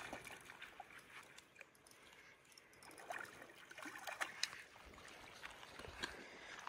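Faint, irregular splashing and rustling from a hooked trout being drawn in to the edge of a lake.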